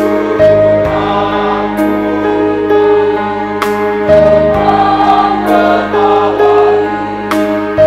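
Student choir singing in harmony, holding long chords that change every second or so.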